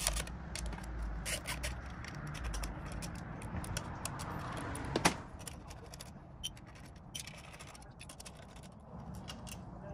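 Light clicks and scraping of a small hand ratchet and metal parts as bolts are taken out of a winch control box, with one sharper click about five seconds in.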